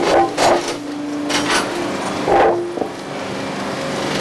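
A track-renewal machine running with a steady hum while concrete railroad ties clank on its inclined conveyor: a few heavy knocks at uneven spacing, about a second apart.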